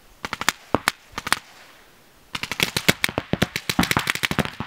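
Paintball markers firing. A few scattered shots come in the first second and a half. After a short pause comes a rapid stream of shots, roughly ten a second.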